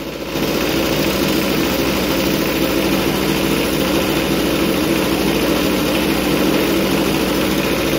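Bench grinder's steel wire wheel running with a steel square tube held against it: a steady hiss of wire bristles scrubbing oxide off the metal, over the motor's hum. It gets a little louder about a third of a second in and then holds steady.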